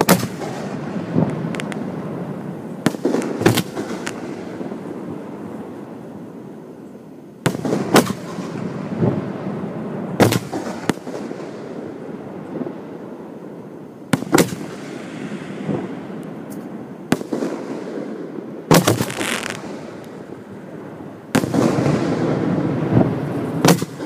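Aerial firework display shells bursting overhead, heard close up from the firing site: sharp bangs every few seconds, some in quick pairs, with crackle and rumble between them.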